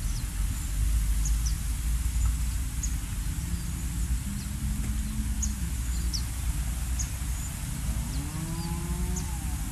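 A cow lowing: a short held low call about halfway through, then a long rising moo near the end. Under it runs a steady low rumble, with short high chirps repeating throughout.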